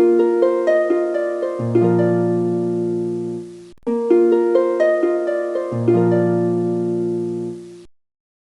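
Short plucked-string intro music, harp-like: a phrase of notes climbing one after another with lower notes joining in and ringing on, played twice, then cutting off suddenly near the end.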